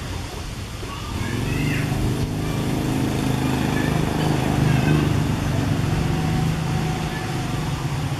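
Low, steady engine hum of a motor vehicle, growing louder about a second in and holding, with a few short high chirps over it.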